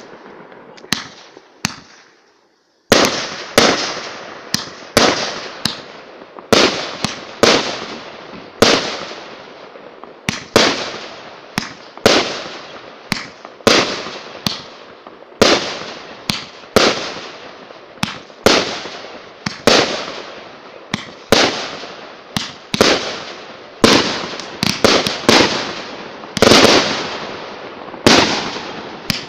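Aerial fireworks bursting: a couple of small pops, a brief lull, then a steady run of sharp bangs about every half-second to second, each trailing off in an echo.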